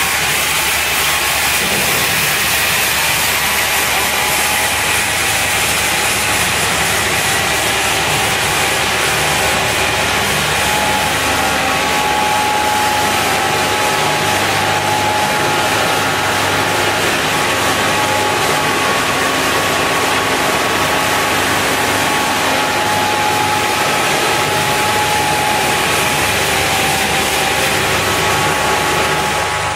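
A plastic pelletizing line running: the steady drone of its extruder and drive motors, with a few steady whining tones over a constant hiss.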